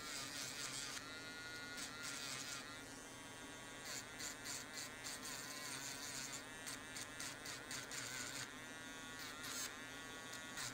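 Mant D1 battery-powered micro grinding pen running with a steady high whine, its bit grinding old spot-weld remnants off a phone battery's metal tab. Bursts of scratchy grinding come and go as the bit touches the metal, and the whine wavers under the load.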